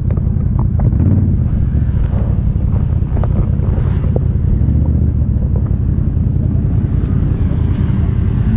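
ATV engine idling steadily, with wind buffeting the microphone.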